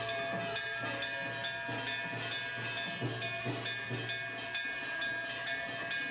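Temple ritual music: a drum beating about twice a second under steady, sustained ringing tones.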